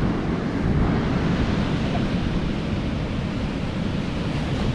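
Ocean surf washing steadily onto the beach, mixed with wind rumbling on the microphone.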